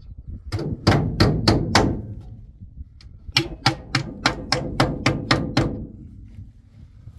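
Repeated sharp knocks in two runs: five blows, a pause of about a second and a half, then about nine more at roughly four a second, each with a short ringing tail.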